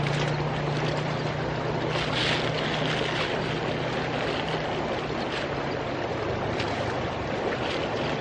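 Steady rushing of a flowing river, with a low steady hum beneath it. Nylon tent fabric and a sleeping bag rustle briefly now and then as they are handled.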